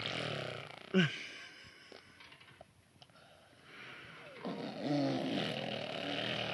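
A baby vocalizing without words: a short, loud sliding sound about a second in, then quieter stretches, and a longer run of babbling sounds near the end.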